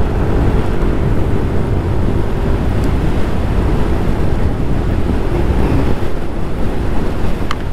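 Heavy wind noise buffeting the camera microphone while riding a Yamaha Aerox 155 scooter at a steady speed, with the scooter's single-cylinder engine holding a steady hum underneath.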